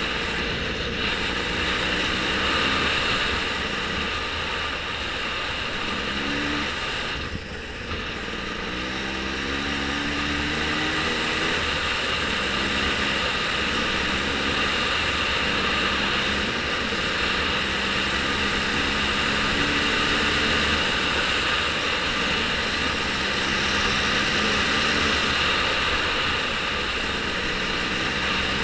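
A vehicle engine running, its pitch shifting up and down, under a steady rush of noise.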